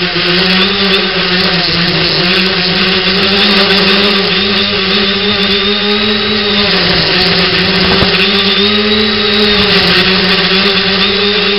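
Onboard audio of an X900 tricopter's three brushless motors and propellers in flight: a steady whirring drone whose pitch wavers slightly with throttle changes, dipping briefly about seven seconds in.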